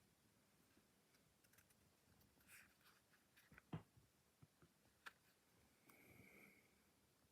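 Near silence with a few faint, sharp clicks and taps and a brief soft rustle: the plastic DVD case being handled.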